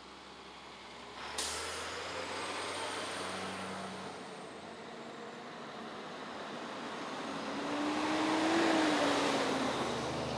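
Fire trucks driving slowly past one after another, their diesel engines running. About a second and a half in, a sharp hiss of air brakes. Near the end, one truck grows loud as it passes close by, its engine note falling as it goes.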